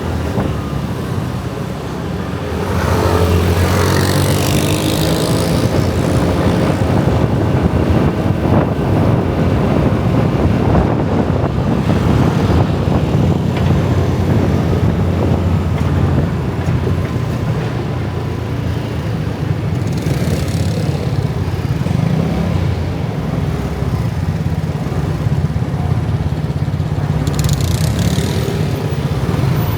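Dense motor scooter traffic: many small engines running together in a steady drone, with individual scooters passing close by, notably about three seconds in, around twenty seconds and near the end.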